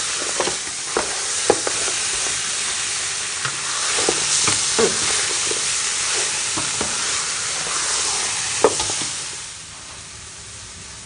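Pork bones sizzling as they sear in a metal stockpot, stirred with a metal ladle that clinks and scrapes against the pot now and then. The sizzle drops off sharply about nine seconds in.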